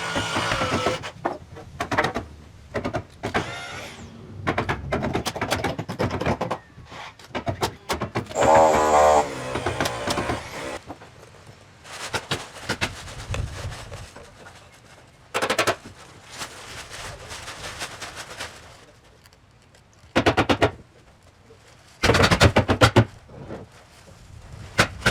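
Building work on a timber-framed shed: a run of sharp knocks and bangs, some in quick bursts near the end, typical of nailing, with a brief pitched tool whine about eight seconds in.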